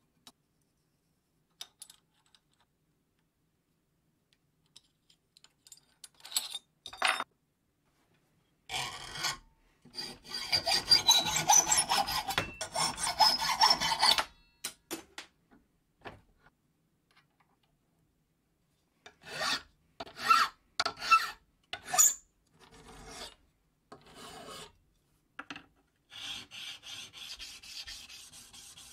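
Hand hacksaw cutting a small steel part held in a vise, with quick sawing strokes for about five seconds. Later come scattered single rasping strokes on metal, and near the end the steel piece is rubbed rapidly back and forth on an abrasive sheet.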